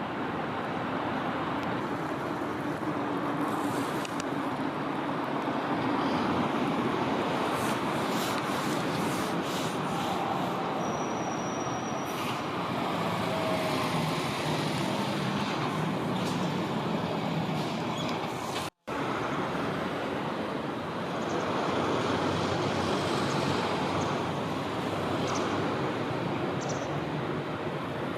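Steady road traffic noise that swells and fades slowly as vehicles pass. The sound cuts out completely for a moment about two-thirds of the way through.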